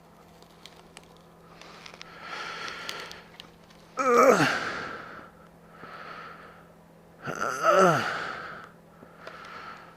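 A man breathing heavily and letting out two loud sighs with falling pitch, about four seconds in and again near eight seconds, amid softer breaths.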